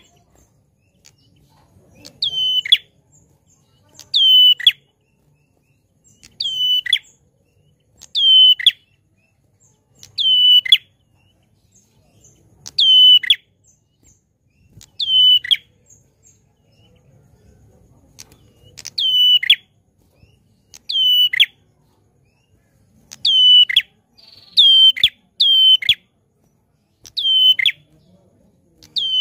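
Ashy tailorbird (prenjak klawu) giving a loud, sharp call over and over, each one a quick downward-sweeping note, about every two seconds. Near the end three calls come in quicker succession.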